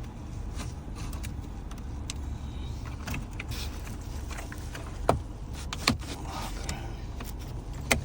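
Plastic dashboard trim being pried off by hand: a few sharp clicks and snaps as the clips let go, strongest about five, six and eight seconds in, with fainter scraping of plastic between them, over a steady low hum.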